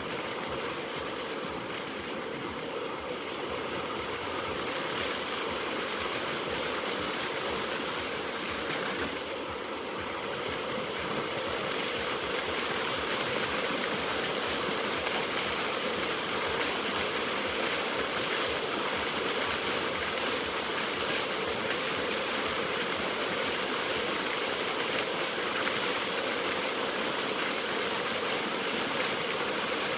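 Water fountain jets spraying and splashing in a steady rush, a little louder from about ten seconds in.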